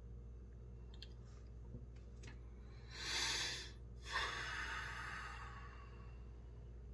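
A man takes a slow, deep breath: a noisy breath in about three seconds in, then a breath out that starts sharply and fades over about a second and a half. A faint steady low hum runs underneath.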